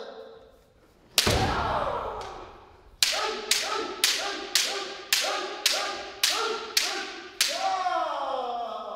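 Kendo kirikaeshi drill: a bamboo shinai strike with a long, falling kiai shout about a second in, then a quick run of about eight strikes roughly two a second, each with a short shout, and a final strike with a long falling shout near the end.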